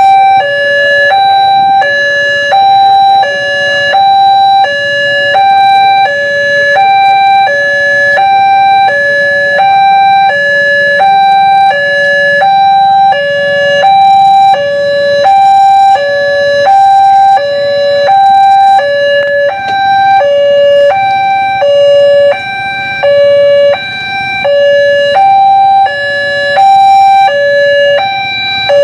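Railway level-crossing warning alarm sounding: a loud two-tone signal alternating high and low in a steady repeating pattern. It warns that a train is approaching the crossing.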